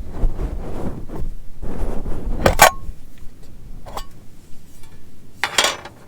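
Handling noise: rustling, then a few sharp knocks and clinks, two of them ringing briefly like metal being set down.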